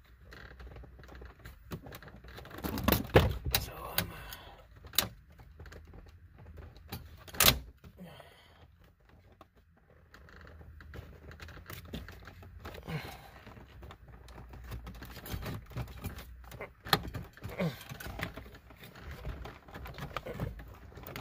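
Irregular plastic clicks, taps and knocks as a Kenwood double-DIN head unit in its trim bezel is handled and pressed into the VW Touareg's dash opening, with a cluster of knocks about three seconds in and one sharp, loud click at about seven and a half seconds.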